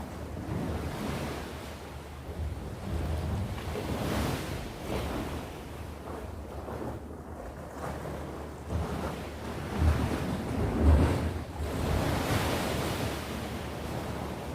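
Sea waves washing ashore in repeated swells that rise and fall, with a low wind rumble on the microphone that is strongest about ten seconds in.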